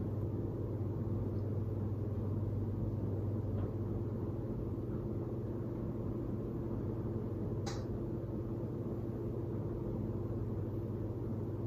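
Steady low mechanical hum and rumble, with a single faint click about three-quarters of the way through.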